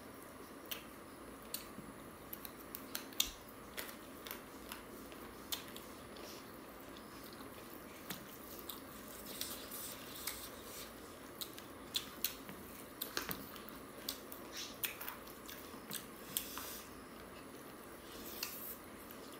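Two people eating chicken curry and rice with their fingers: chewing with irregular sharp mouth smacks and clicks.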